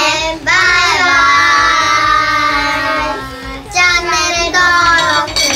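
A group of young children calling out together in a drawn-out, sing-song chorus, one long held note lasting about three seconds, then a second shorter call near the end.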